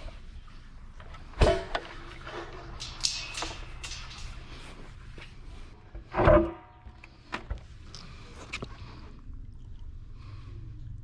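Scrap metal being shuffled around in a load: two loud knocks, about a second and a half in and about six seconds in, the second ringing briefly, with smaller clanks and clicks between and after.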